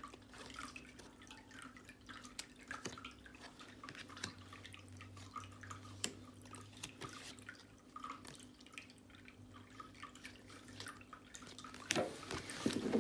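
Soft, scattered clicks and light taps of tarot cards and their paper being handled, over a low steady hum, with louder handling near the end.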